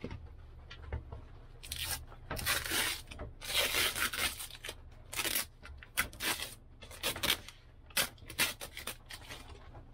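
Masking tape being peeled and torn off a cellular honeycomb blind in a series of short, irregular ripping pulls.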